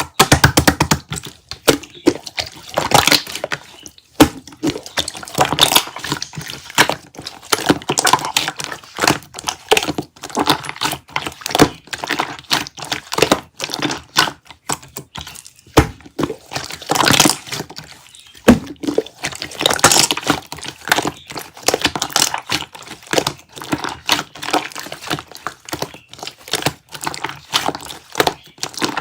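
Close-miked eating of yogurt: a dense, irregular stream of crackles and wet, sticky mouth clicks.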